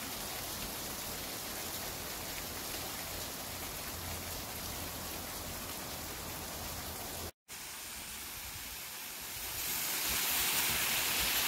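Mountain spring water cascading down a rock waterfall into a pool: a steady rush of falling water. It cuts out for a moment about seven seconds in, then comes back louder and hissier near the end.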